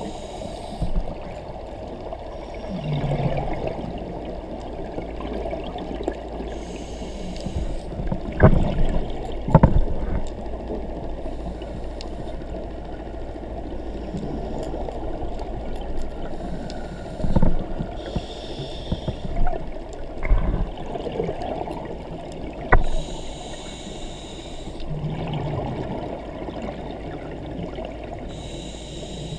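Scuba diver breathing through a regulator, heard underwater through a camera housing: a hiss and a gurgle of exhaled bubbles every five or six seconds over a steady muffled rumble, with a few dull knocks.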